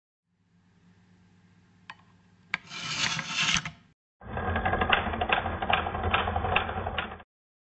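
Rotary telephone dial being wound round with a pencil: a second of rasping. It is then released and spins back under its governor for about three seconds, a steady whir with sharp clicks. The return is what sends the dialed digit's pulses to the step-by-step switching equipment.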